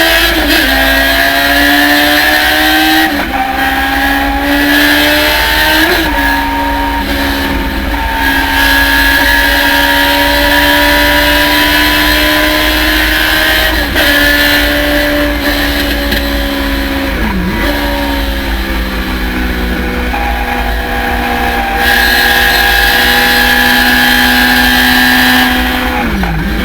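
Thunder Roadster race car engine running hard at speed, its pitch climbing slowly and dropping briefly at each gear change, about six times.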